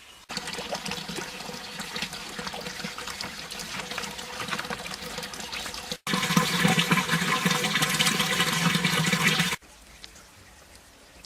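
Water running and splashing, heard as two cut-together shots: the first starts abruptly just after the start, and a second, louder one begins about halfway and cuts off suddenly about two seconds before the end.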